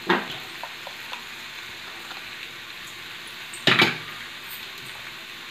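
Raw banana pieces frying in spiced masala and oil in an aluminium kadai, a steady sizzle, with one brief clatter a little past halfway.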